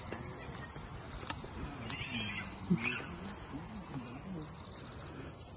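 Low, steady chirring of insects, with faint distant voices.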